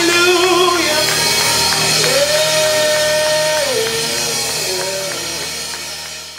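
Worship music with sustained chords and a voice holding one long sung note, fading out near the end.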